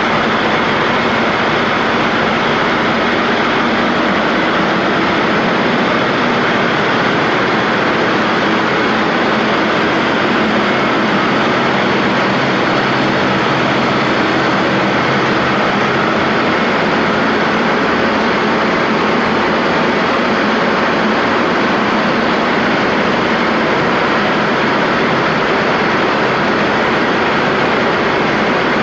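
John Deere PowerTech 4.5 L four-cylinder turbocharged diesel engine of an MTU Onsite Energy 100 kW standby generator set running steadily at constant speed, a loud even drone mixed with the rush of its radiator fan.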